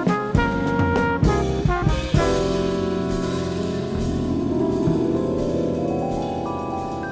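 Recorded jazz with trumpet, saxophone and drums, played from a vinyl record. It plays a few short accented notes, then a long held final chord from about two seconds in that slowly fades as the tune ends.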